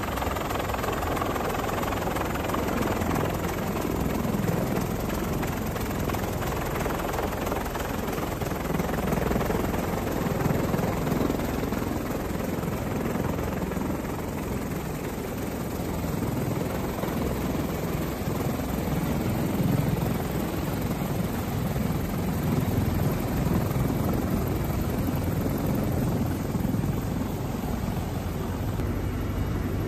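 CH-53E Super Stallion heavy-lift helicopter running on the ground with its rotors turning: a steady, loud engine and rotor noise with a low, wavering throb from the blades.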